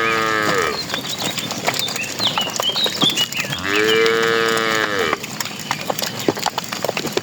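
Cattle mooing: one moo trails off about half a second in, and a second long moo comes about halfway through. Short high chirps and scattered clicks sound between the moos.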